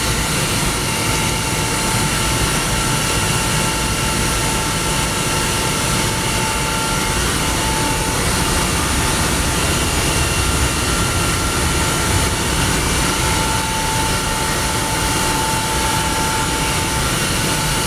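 Rotary screw air compressor running steadily, a loud constant machine noise with a steady high whine over a low rumble.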